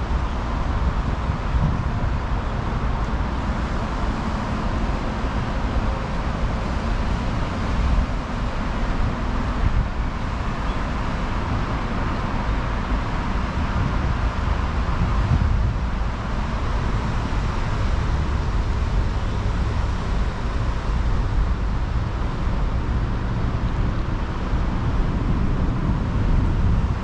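Steady outdoor noise: wind rumbling on the camera microphone mixed with the hum of road traffic.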